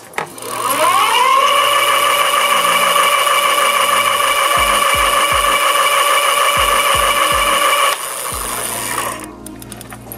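The Bafang 750 W rear hub motor of an electric fat-tire bike whining under throttle. Its pitch rises over about a second as it spins up, then holds steady before dropping away about eight seconds in. A few low thumps come midway.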